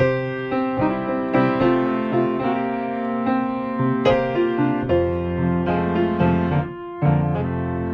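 Solo piano music, a slow melody with a brief pause near the end.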